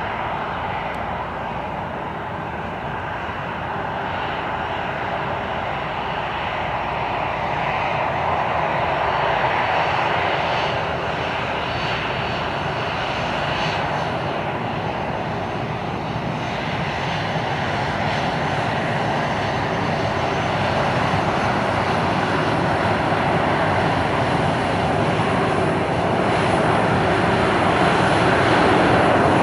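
Boeing 737-400's CFM56-3 turbofan engines running at taxi power as the jet rolls past on the taxiway, a steady jet whine and rush that grows gradually louder.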